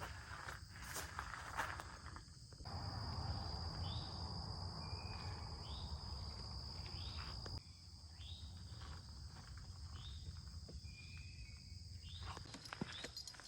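Outdoor woodland ambience: short repeated chirping calls, and a steady high buzz that runs from about three to seven and a half seconds in, then cuts off.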